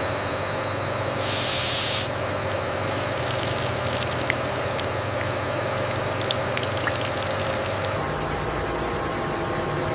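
Industrial machinery running steadily with a hum, with a loud hiss of released air or spray lasting under a second about a second in, then scattered sharp clicks and ticks.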